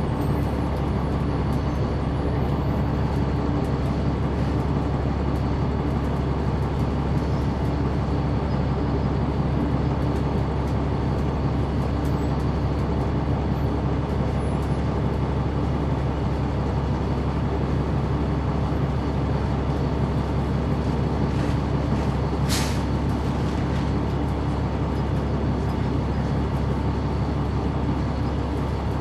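Caterpillar C9 ACERT inline-six diesel of a Neoplan AN459 articulated transit bus, heard from the rear seats, running steadily at an even engine speed. A short hiss cuts in briefly about three-quarters of the way through.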